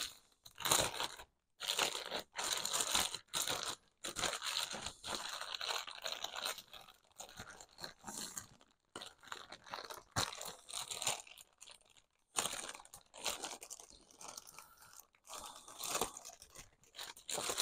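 Cardboard and plastic packaging being opened and torn by hand, in irregular short bursts of crinkling and tearing with brief pauses.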